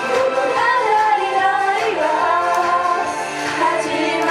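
Female voices singing a J-pop idol song into handheld microphones, over continuous backing music played through a PA.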